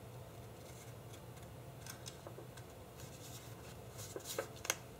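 Small craft scissors snipping and handling paper: a few faint, short snips and rustles, with two sharper clicks near the end.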